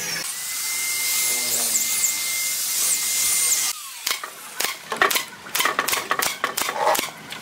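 DCA electric drill running steadily at the screw holes of a brass mortise lock faceplate set in a wooden door edge, stopping abruptly about halfway through. After it, a hand screwdriver clicks and scrapes as it turns the faceplate screws.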